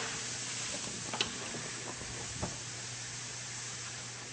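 Faint steady hiss with a low steady hum and two soft clicks, about one and two and a half seconds in.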